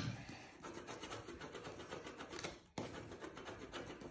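Faint, quick scribbling strokes of a pen on a paper cut-out as it is coloured in, scratching against the paper with a brief break about two and a half seconds in.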